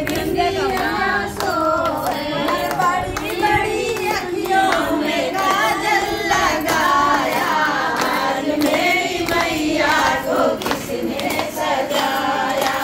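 Several women singing a song together in unison, with hand claps.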